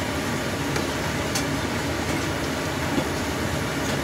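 Steady rushing noise with a ladle being stirred through broth in a steel stockpot, clinking lightly against the pot twice.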